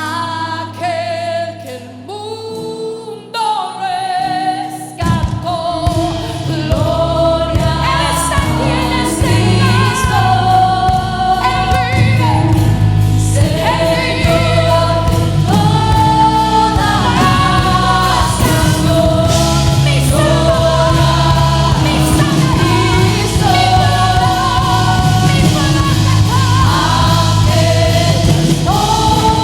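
Worship song with a group of singers over a band: it opens sparse with voices and held keyboard-like tones, then the full band with bass and drums comes in about five seconds in and the music stays loud.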